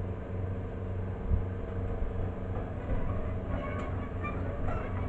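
Engine of a house cat, a robotic tracked bulldozer used to move manufactured homes, running steadily under load as it swings a long modular-home section on its multi-axle trailer. A single short knock comes about a second and a half in.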